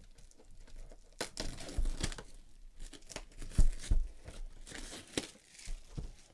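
Clear plastic shrink wrap being torn and pulled off a trading card box, crinkling and crackling. It starts about a second in, with the sharpest crackles around the middle.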